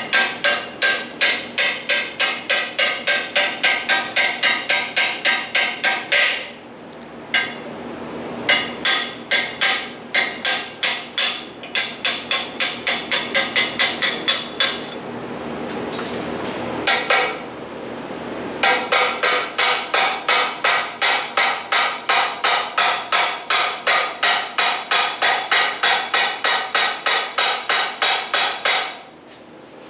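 Ball-peen hammer striking a steel drift punch to drive steel shafts out of a welded pivot assembly. The blows come in fast runs of about three a second and ring, with two short breaks between the runs.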